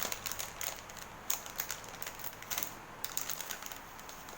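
Plastic packaging crinkling and crackling as it is handled and opened, a run of small, irregular clicks.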